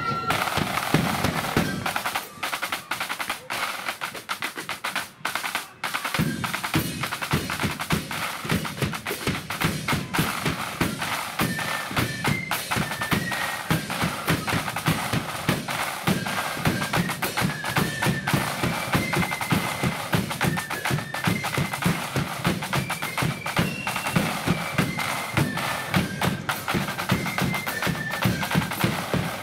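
Blood-and-thunder marching flute band playing: massed snare drums rattle out a fast rhythm under a bass drum beat, with the flutes' high tune on top. Between about two and six seconds in only the snares play; then the bass drum comes back in, and the flute melody returns a few seconds later.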